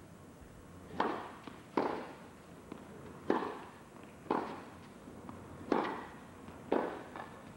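Tennis rally: a serve, then rackets striking the ball back and forth, six sharp hits spaced about a second apart, each echoing briefly in an indoor arena.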